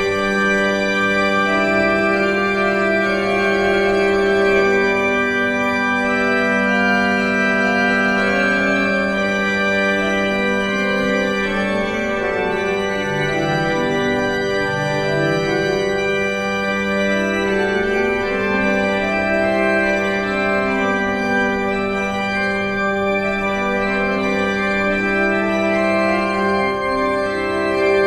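Background organ music: slow, sustained chords over a long-held low note, with the upper parts moving gently.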